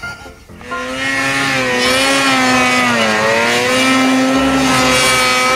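Snowmobile engine running hard at high revs while the sled ploughs through deep powder. It starts about a second in, dips in pitch around the middle and climbs back.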